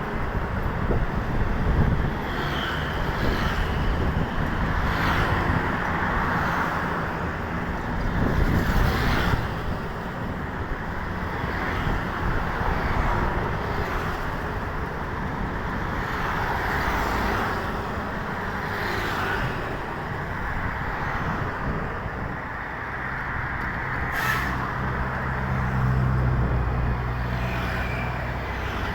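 Roadside traffic: vehicles passing one after another, each swelling and fading, with a short sharp hiss about 24 seconds in and a heavy engine's low drone toward the end.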